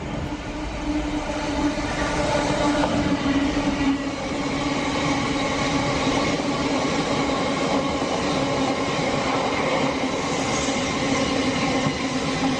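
A train running with a steady electric hum over the rolling noise of its wheels, swelling during the first two seconds and then holding steady.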